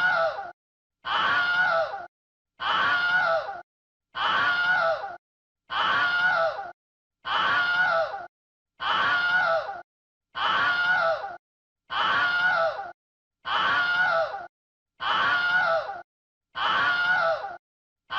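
A recorded human scream looped over and over: about a dozen identical screams, each lasting about a second, with its pitch wavering and falling, then cutting off into a short silence before the next begins.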